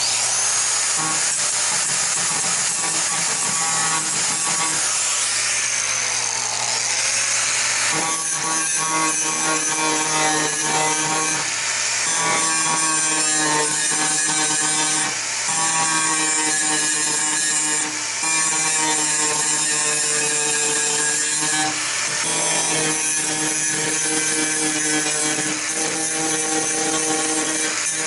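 Handheld electric power tool, such as a grinder, running loud and steady against the door metal, with short dips every few seconds as the tool eases off the work.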